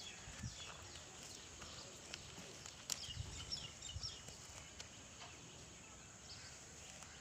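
Faint farmyard background: small birds chirping in short falling notes, with a few soft knocks and clicks around the middle.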